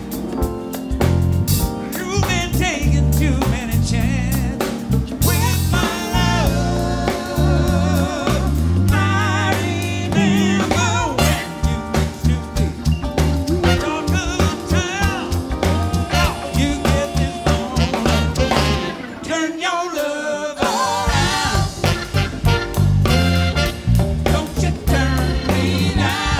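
Live soul/R&B band playing, with a man singing lead over drum kit, bass, guitar and keyboards. The bass drops out for a short break about twenty seconds in, then the groove comes back.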